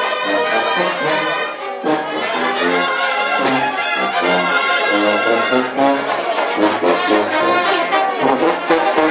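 A brass band playing a lively tune, with trumpets and trombones sounding a run of short changing notes.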